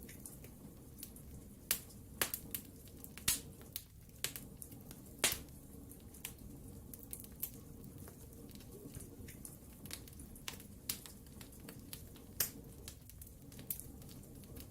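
Wood fire burning in a fireplace: irregular sharp crackles and pops over a low steady rumble of flames, with a few louder pops, the biggest about five seconds in.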